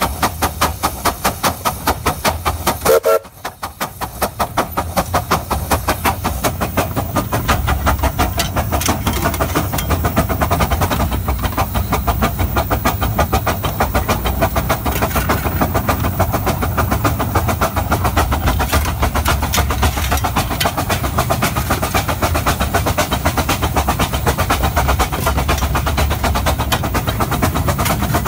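15-inch gauge steam locomotive working, heard from its cab: rapid, even exhaust beats over a steady low rumble, with a brief dip in loudness about three seconds in.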